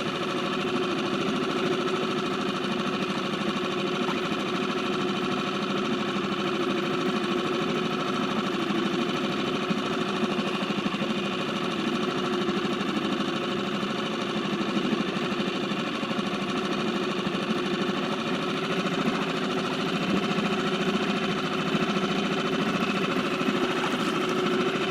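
Small Seatan outboard motor running steadily at trolling speed, an even drone that holds the same pitch and level throughout.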